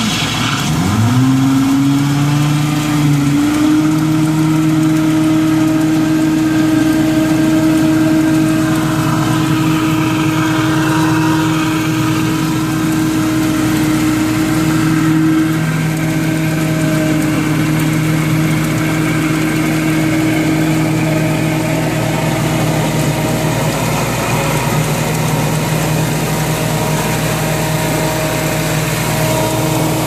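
Hydro jetter running, jetting water through a sump pump drain line: a steady engine-like hum over the rush of the water jet, which sounds like a boat in the water. About half a second in, the hum's pitch dips and climbs back, then holds steady.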